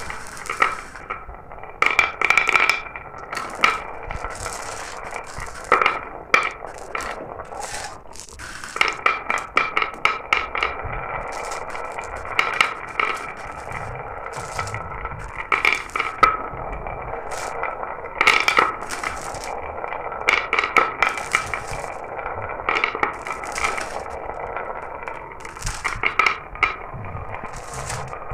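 Glass marbles rolling down a marble run, making a continuous rolling ring with many quick clicks and clacks as they strike the track and each other.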